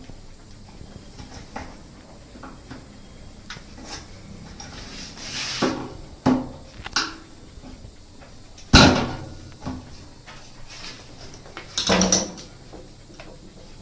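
Scattered knocks and clicks of hands working on a washing machine's water inlet valve and its fittings, with the sharpest knock about nine seconds in and another pair near the end.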